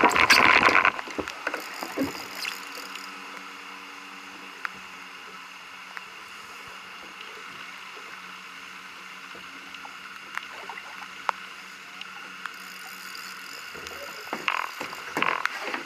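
A boat motor hums steadily for about ten seconds, starting a couple of seconds in and stopping near the end. It opens with a short, loud rush of noise, and small clicks are scattered throughout.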